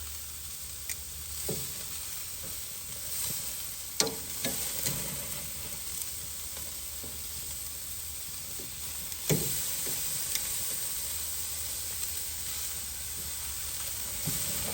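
Steaks sizzling on a grill: a steady frying hiss. Two sharp knocks come about four seconds in and again about nine seconds in.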